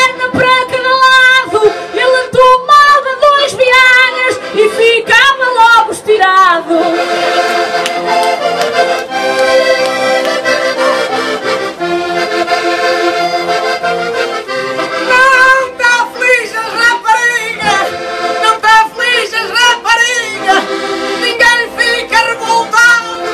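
Two accordions playing a lively traditional Portuguese tune. Quick ornamented melody runs open the passage, steadier held chords take over for several seconds in the middle, and fast runs return near the end.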